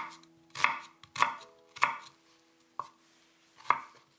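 Cleaver blade chopping through an onion onto a wooden cutting board: separate sharp knocks about every half second, a fainter tap in the middle and a longer gap before the last chop.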